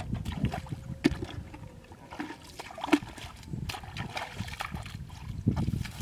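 Bare feet splashing and squelching through a shallow muddy ditch, with irregular sharp wet pops, the loudest about a second in and about three seconds in.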